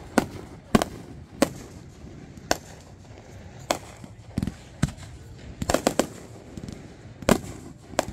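Aerial fireworks shells bursting: about a dozen sharp bangs at irregular intervals, several in quick succession about two-thirds of the way through.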